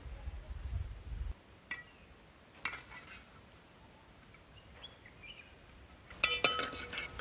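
Metal cookware clinking: a few light clicks, then a quick cluster of ringing clinks about six seconds in.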